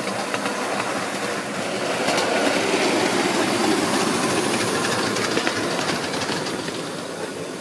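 5-inch gauge miniature steam locomotive and its riding truck running past close by, the wheels clicking rapidly over the rails. It grows loudest a little before halfway as it passes, then eases off as it moves away.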